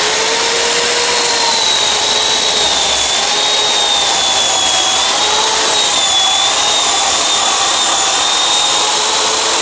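Petrol chainsaw running at full throttle while cutting through a log, a loud steady whine whose pitch wavers slightly under the load of the cut.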